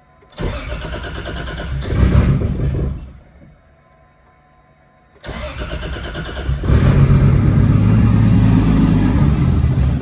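Car engine being started twice: the starter cranks for a couple of seconds and stops, then after a short pause a second, longer attempt gets louder about halfway through and keeps going.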